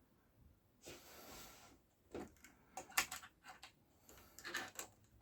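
A short sliding rasp about a second in, then a scatter of light clicks and knocks from handling small hardware and tools on a caravan drawer.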